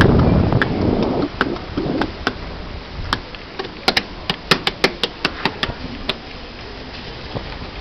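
Wind buffeting the microphone at first, then a run of sharp, irregular taps or clicks, coming about three to four a second between roughly four and six seconds in.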